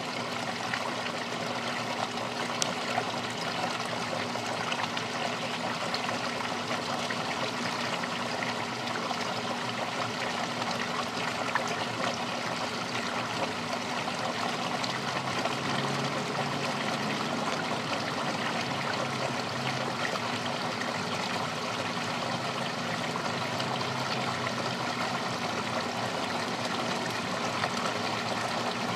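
Garden pond waterfall running steadily, water splashing and trickling into the pond.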